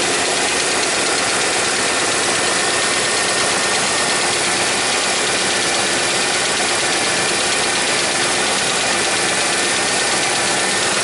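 Ford 5.8-litre Windsor V8 idling steadily, with a little knock that seems to come from the driver's side.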